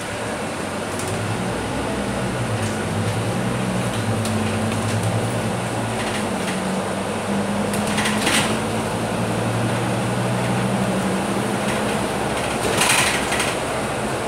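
Scania K310UB city bus under way, heard from the front of the passenger cabin: the five-cylinder diesel's low drone steps up and down in pitch a few times as it pulls along, over steady road and tyre noise. Two short hissing, rattly bursts stand out about eight and thirteen seconds in.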